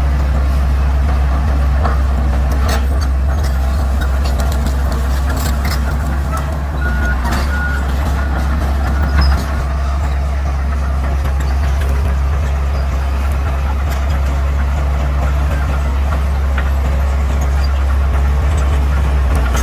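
Bulldozer's diesel engine running steadily with a deep drone, with scattered clicks and cracks over it and a brief louder thump about nine seconds in.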